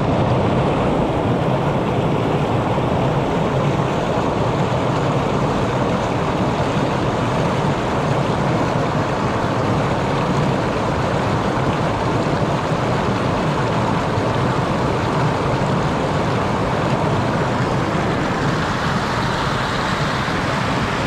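Mountain stream rushing over rocks, a loud, steady roar of running water close to the microphone.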